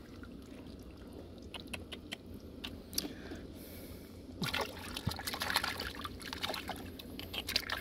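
Shallow muddy water trickling and splashing lightly as hands move through it, with small scattered clicks and splashes that grow busier about halfway through.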